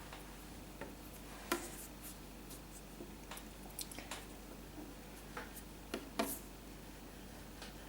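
Hands handling Play-Doh modelling clay and small plastic pieces on a table: scattered light clicks and taps, louder about a second and a half in and again about six seconds in, over a faint steady hum.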